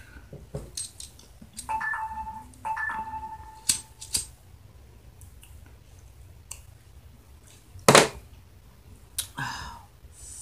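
Disposable lighter being flicked to light a joint: a few sharp clicks, the loudest about eight seconds in, then a short drawing breath on the lit joint near the end. Two short steady high tones sound between about two and four seconds in.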